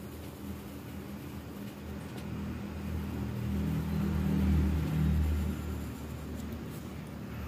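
Low engine rumble of a passing motor vehicle, swelling to a peak a little past the middle and then fading away.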